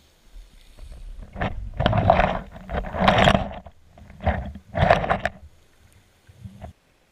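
Muffled underwater rushing and knocking picked up through a GoPro's waterproof housing as it settles onto a pebble seabed, coming in several uneven surges. The sound cuts off suddenly near the end.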